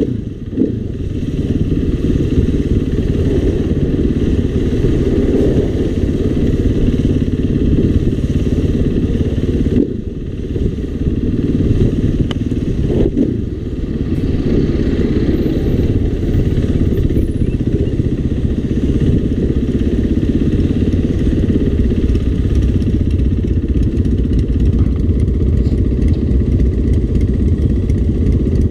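KTM dirt bike's engine running as it is ridden slowly between lanes of traffic. The sound dips briefly near the start, about ten seconds in and again around thirteen seconds in.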